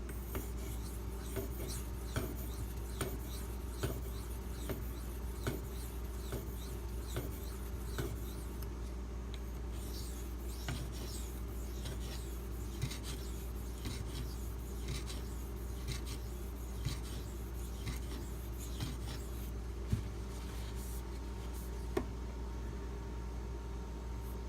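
Maxamet steel knife blade stroked across a 2500-grit silicon carbide sharpening stone: a run of short rasping strokes, about one a second at first and quicker in the middle, with small clicks, over a steady low hum.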